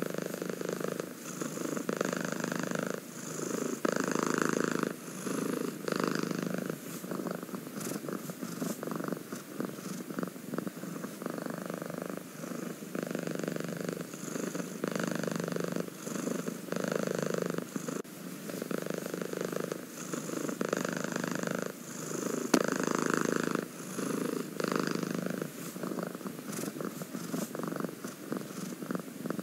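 Domestic cat purring close up, the purr swelling and easing back about every two seconds with its breathing.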